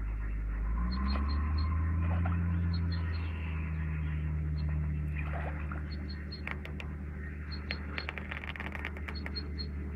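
A steady low engine hum that rises a little in pitch about a second in, with short high chirps in groups of three or four repeating throughout. A run of sharp clicks and knocks comes in the second half.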